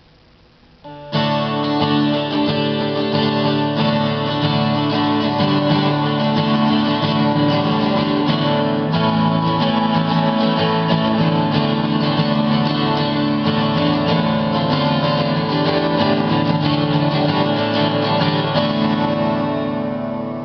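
A 12-string Martin acoustic guitar, strung through a double ToneBar instead of bridge pins, being played, its chords ringing; the playing starts about a second in and fades near the end.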